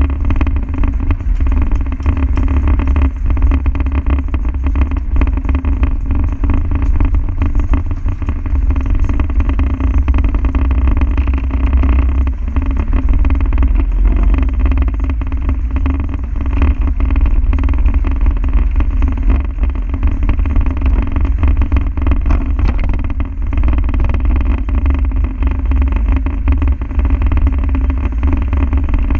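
Land Rover Defender's diesel engine running while driving, a steady low rumble with many small knocks and rattles over it.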